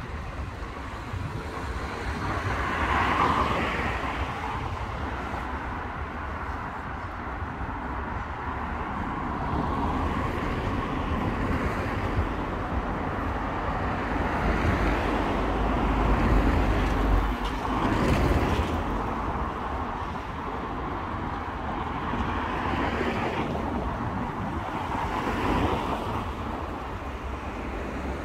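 Road traffic noise with cars passing now and then, swelling about three seconds in and again past the middle, over a low wind rumble on the microphone.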